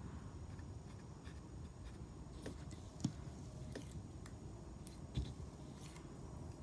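Faint handling sounds of hands working a small crocheted yarn toy being stuffed with catnip. Scattered soft clicks, the two clearest about three seconds and five seconds in.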